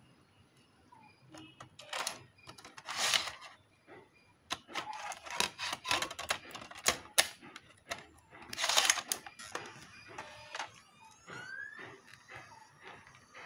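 A DVD handled and loaded into a laptop's optical drive: clicks, clacks and rustling as the disc is set on the slide-out tray and the tray is pushed shut, then a faint rising whine about eleven seconds in as the drive spins the disc up.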